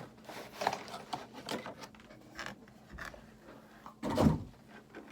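Hands handling cardboard packaging and a paper instruction leaflet: scattered rustles and light knocks, with one louder bump about four seconds in.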